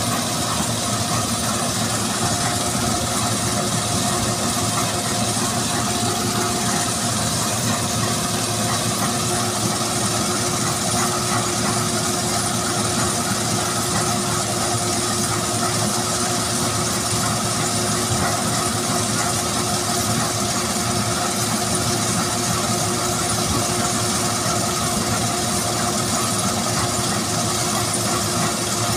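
Claas combine harvester running steadily while cutting and unloading grain through its auger: a dense, even machine drone with a steady hum.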